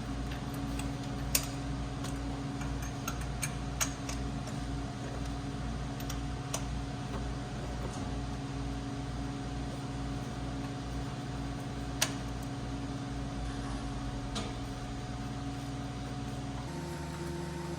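Steady machine hum, like a shop fan, with a pulsing low drone, and a few sharp clicks of metal tools against the engine as the spark plug socket and extension go to work. The hum changes pitch shortly before the end.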